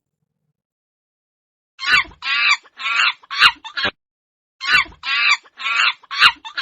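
Monkey calls: silence for about two seconds, then two quick runs of short, harsh, high-pitched calls, about five in each run, the second starting a little past the middle.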